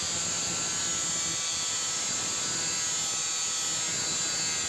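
Angle grinder cutting slots into the steel head of an old engine valve: a steady motor whine over the hiss of the disc on the metal.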